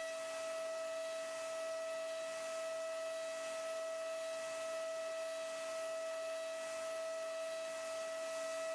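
DATRON M8Cube high-speed machining center's spindle running at speed while milling a mold. It gives a steady high-pitched whine over a constant hiss.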